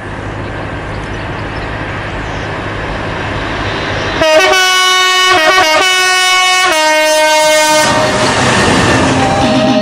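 A Freightliner Class 66 diesel locomotive runs toward the listener hauling a container train, its engine rumbling steadily. About four seconds in the locomotive's horn sounds for roughly three and a half seconds, in a few blasts that change tone. The rumble of the engine and wagons continues after the horn.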